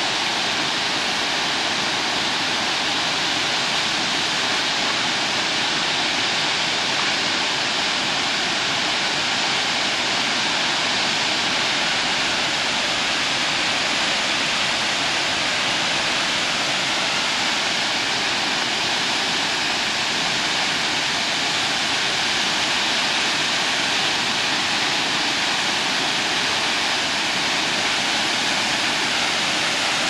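Steady rushing of a tall waterfall plunging down a canyon wall, an even hiss with no breaks or changes.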